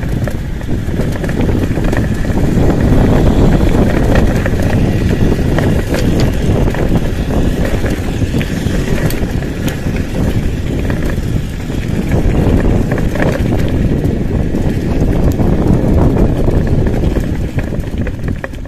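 Wind rushing over the microphone of a mountain bike being ridden over a rough, stony dirt track, with tyre crunch and scattered rattles and knocks from the bike over the bumps. The noise eases off near the end as the bike slows.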